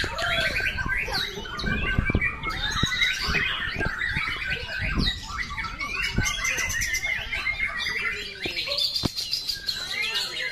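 Several caged white-rumped shamas (murai batu) singing at the same time, a dense tangle of overlapping whistles, trills and chirps with no pause.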